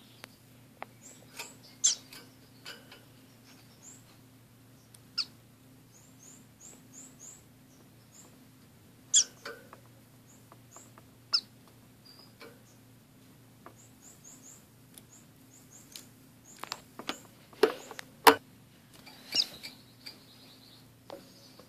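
Caged orange-cheeked waxbills and a society finch giving very high, thin chirps in quick little runs, with a few louder sharp clicks scattered through.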